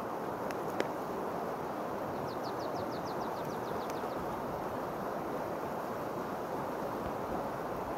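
Steady outdoor rushing noise throughout. Near the middle, a bird gives a quick trill of about ten short rising notes, and two faint clicks come within the first second.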